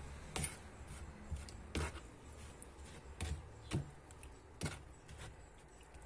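Metal spoon stirring thin cement slurry in a plastic bucket, with about half a dozen irregular sharp clicks and knocks as it strikes the bucket.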